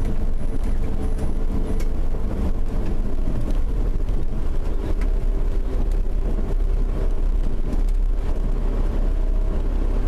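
Steady engine and tyre rumble of a motor vehicle driving along a snow-covered road, heard from inside the vehicle, with a faint steady hum over the top.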